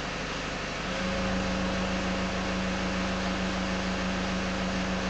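2006 Nissan Navara D22's 3.0-litre four-cylinder turbo diesel idling steadily with the truck stationary, heard from inside the cab. A steady hum joins about a second in and holds.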